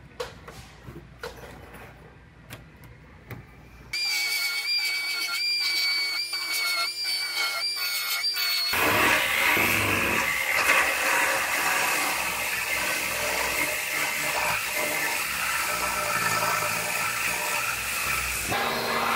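Shop power tools at work on a car body: a few sharp clicks, then about four seconds in a high steady whine that wavers and dips in a rhythm, giving way after about nine seconds to a dense, harsh running noise.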